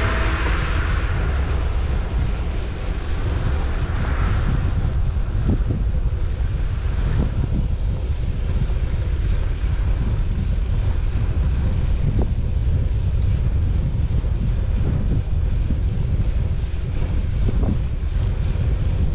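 Steady low rumbling wind buffeting the microphone of a camera moving along a cycle lane. A brief hiss of a passing vehicle comes near the start, and a few faint knocks follow later.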